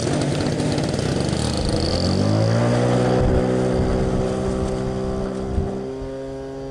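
Motor and propeller of a radio-controlled model Cessna 152, throttled back. A rushing noise settles about two seconds in into a steady humming tone that glides slightly down before holding, then fades slowly near the end.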